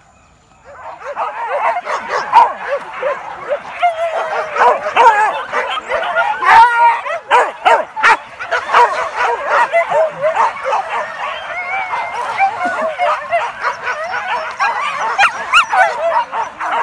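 A pack of boar-hunting dogs barking together in many overlapping voices. The chorus starts suddenly less than a second in and keeps up without a break.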